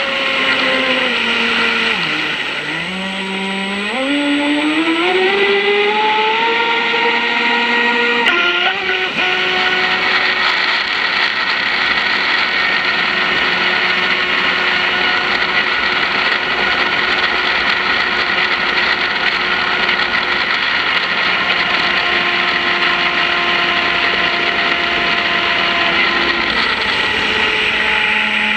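Brushless electric motor of a twin-hull RC speedboat whining under throttle: the pitch drops about two seconds in, climbs back over several seconds, then holds high and steady at speed over a constant hiss, easing off near the end.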